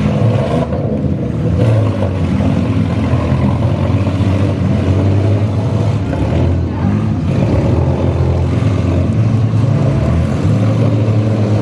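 Minivan engines in a demolition derby running hard and revving up and down without a break.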